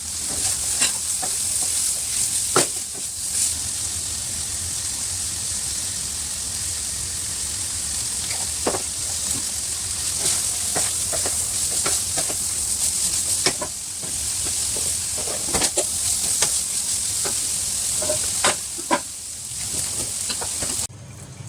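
Tempeh sizzling as it stir-fries in a hot pan, with a spatula scraping and knocking against the pan every second or so. The sizzle cuts off suddenly near the end.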